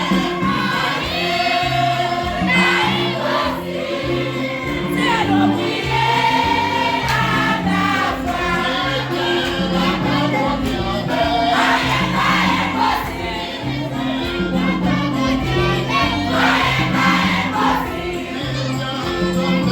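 Church choir singing a hymn with instrumental accompaniment and a changing bass line.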